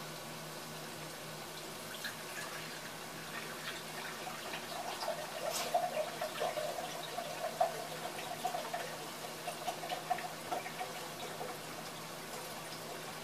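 Milk with a stick of butter and herbs heating in a saucepan, bubbling and crackling softly over a steady hiss, busiest in the middle before settling down.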